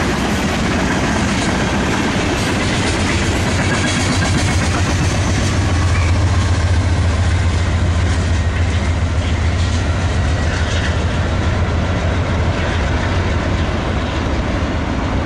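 Loaded BNSF grain train rolling past, its hopper cars' wheels running steadily on the rails. A rear-end distributed-power (DPU) diesel locomotive passes, adding a deep engine drone that builds about five seconds in, is loudest around six to eight seconds, and fades as the train goes away.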